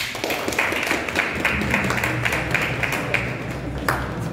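A crowd applauding, with many hands clapping quickly and unevenly.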